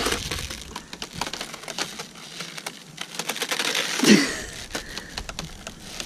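A wooden rope swing creaking and cracking as it swings back and forth: many irregular sharp clicks and crackles.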